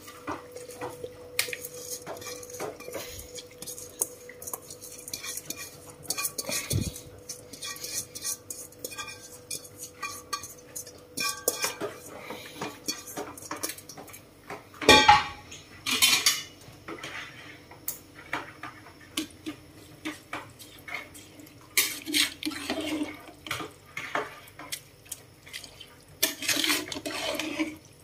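Metal bowl and steel cooking pot clinking and scraping as soaked rice is tipped and scraped into the pot, then worked with a metal spatula; irregular clinks throughout, with one loud clang about halfway through.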